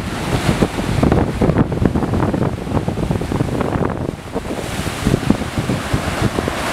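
Rough sea waves breaking and washing over a flat rock shelf, with strong wind buffeting the microphone.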